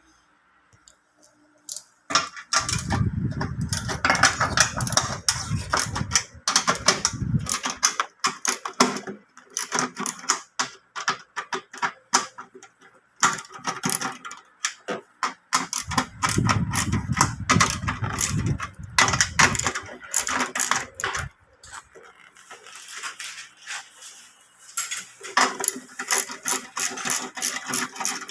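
Tools and metal parts clicking and rattling in quick, irregular strokes while the fuel pump fittings of a scooter are worked loose, with two spells of low rumbling handling noise.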